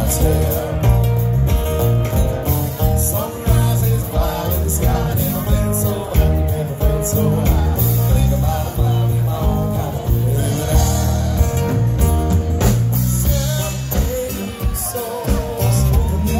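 Live band playing a song: drums, electric bass and acoustic guitar, with a man singing lead vocals over a steady beat.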